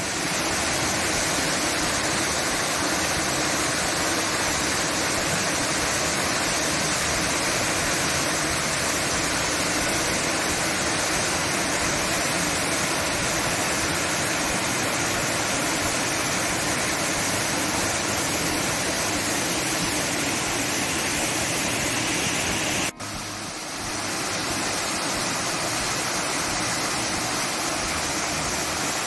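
Fall Creek Falls, a waterfall, rushing steadily as one continuous wash of falling water. About three-quarters of the way through the sound breaks off for an instant and comes back slightly quieter.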